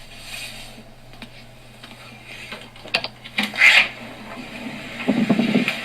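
Clicks and rattles of a door latch and handle as a door is worked open, then blustery wind noise rising near the end as the door opens onto a blizzard.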